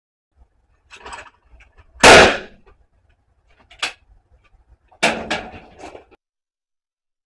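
Shotgun fired at a clay target with a 21 g Lyalvale steel-shot cartridge: one sharp, very loud report about two seconds in, then a second, quieter sharp report about three seconds later.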